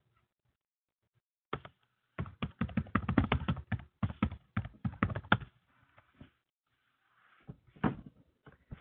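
Computer keyboard typing: a quick run of key clicks for a few seconds, with a few more scattered clicks near the end.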